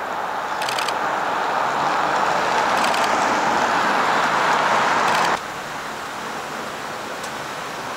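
Cars passing on an asphalt road, a steady tyre-and-engine hiss that builds louder, then drops suddenly about five seconds in to a quieter, steady traffic hum.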